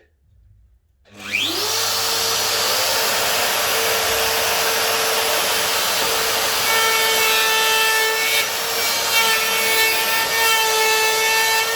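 DeWalt plunge router with a 12 mm straight cutter starting up about a second in with a rising whine, then running steadily at full speed while routing a butt-hinge recess into the door edge through a template jig.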